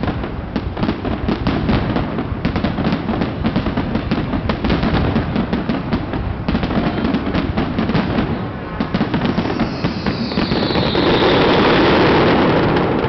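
A fireworks display: aerial shells bursting with dense, rapid crackling and popping, many pops a second. About ten seconds in, the sound swells into a louder, continuous rush with a hiss that falls in pitch.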